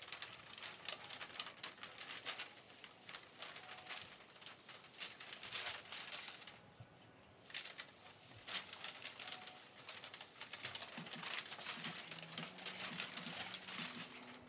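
Ink brush scratching and swishing across paper in quick dry strokes, in stretches with a short pause about halfway through.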